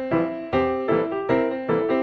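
Background music: piano-like notes struck in a steady rhythm, about two to three notes a second.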